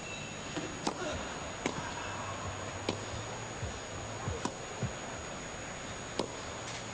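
Tennis ball struck by rackets in a serve and rally: five sharp pops, spaced about one to one and a half seconds apart, over a quiet steady background.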